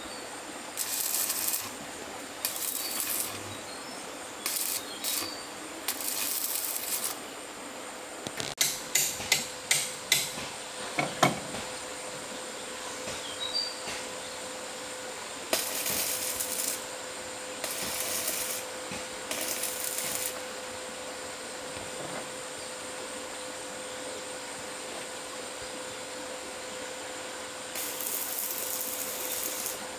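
Hand work with tools: short scraping or rasping strokes of about a second each, repeated at uneven intervals, and about a third of the way in a quick run of around seven sharp taps and knocks.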